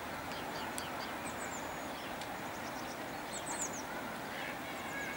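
Small birds calling outdoors: many short, high, falling chirps in quick clusters, over a steady hiss of background noise.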